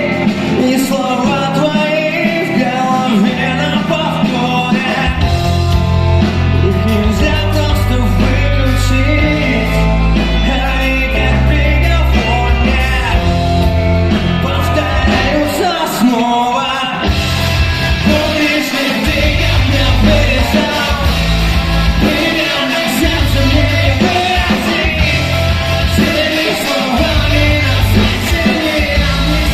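Rock band playing live with a singer. The heavy low end comes in about five seconds in, drops out briefly about sixteen seconds in, and returns fuller with cymbals.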